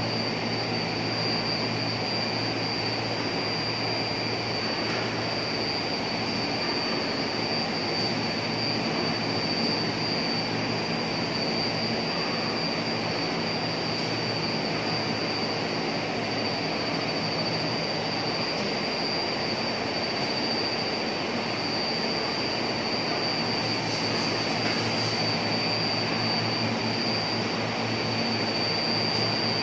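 Steady running noise of a waterproof LED strip extrusion line's machinery, with a constant high whine over a low hum.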